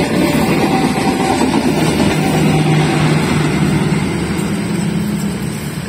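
Train passing close by: a loud, steady rumble of wheels running over the rails, with the hum of a diesel engine underneath.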